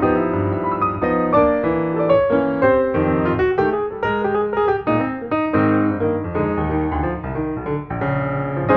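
Background piano music: a steady run of played notes.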